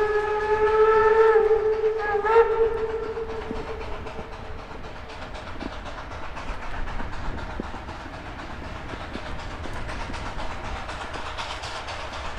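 Steam locomotive whistle on a two-foot-gauge train, blowing a long blast followed by a second shorter blast about two seconds in, then trailing off. Near the end the sound of the approaching train builds.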